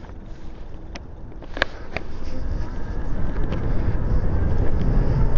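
Wind rumble on the microphone and road noise growing louder as a custom 72-volt e-bike gets under way, after a few sharp clicks in the first two seconds.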